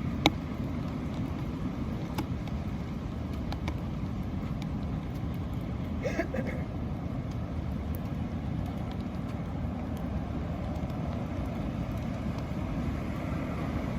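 Steady low outdoor rumble, even in level, with a few sharp clicks over it.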